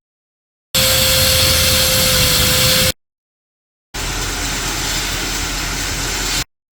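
Two short stretches of steady machine noise, each starting and stopping abruptly with dead silence between them; the first carries a steady tone, the second a heavier low rumble.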